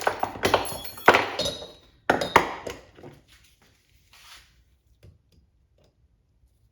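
Sharp metal clanks and knocks with a brief ring, in two clusters over the first three seconds, then a few faint taps: tools and metal parts handled on a driveshaft double cardan joint as its boot is secured.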